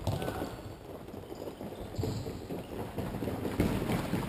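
Futsal players' footsteps and ball kicks on an indoor court in a large sports hall: an irregular patter of quick steps and knocks, loudest a little after three and a half seconds in.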